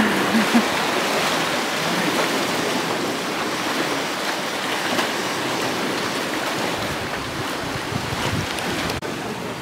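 Sea surf washing steadily onto the shore, with wind buffeting the microphone.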